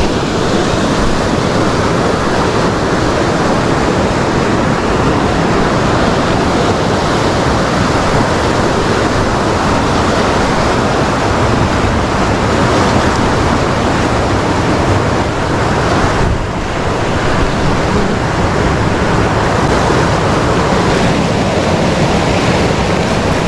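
Loud, steady rushing of a fast stream running through white-water rapids.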